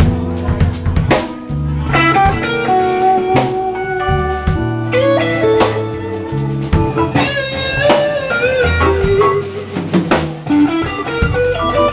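Live band playing an instrumental passage without singing: electric bass and electric guitar over a drum kit, the guitar line bending notes up and down.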